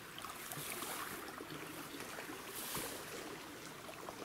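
Faint, steady rush of a small, shallow forest river flowing past, with two brief swells of louder hiss about a second and near three seconds in.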